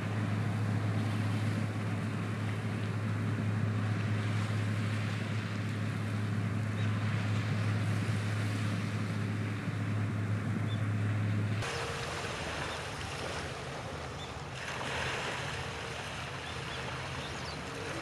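Sea waves washing on the shore with wind. Over them runs a steady low engine hum, which stops abruptly about two-thirds of the way through. After that only the surf, rising and falling, remains.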